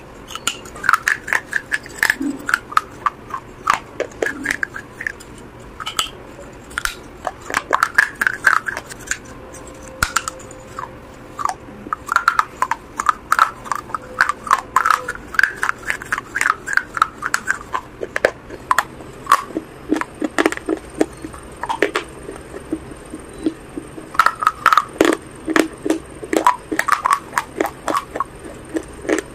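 A person biting and chewing a crunchy food up close, with many short crisp crunches one after another.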